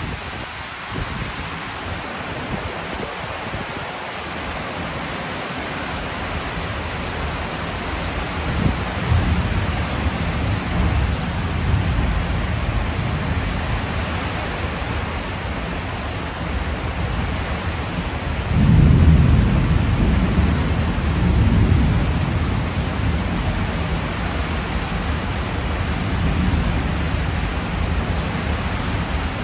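Heavy rain pouring steadily onto trees and a corrugated metal roof, with a deep rumble of thunder that swells a few seconds in and peaks about two-thirds of the way through.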